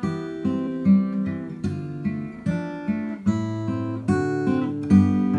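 Background music on acoustic guitar: plucked notes and chords, a new note or chord about every half second.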